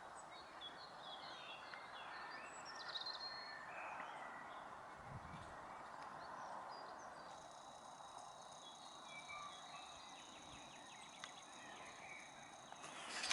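Faint, scattered bird chirps over a steady outdoor hush, with a faint high steady whine joining about halfway.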